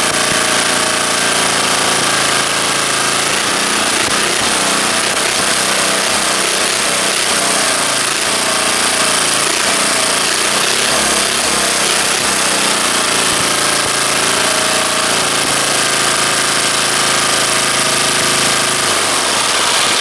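Antique single-cylinder air-cooled small engine running steadily and loudly on the bench with its air cleaner off. Right at the end it starts to die as the throttle lever is pulled all the way back to kill it.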